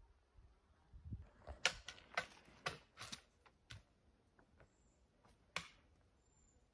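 Faint, sharp, irregular taps of trekking pole tips striking rock, about eight clicks in a cluster a second and a half in, with the last one near the end.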